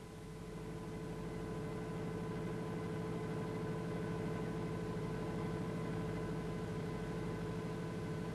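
Lathe running with a steady hum made of several tones, growing louder over the first two seconds and then holding steady.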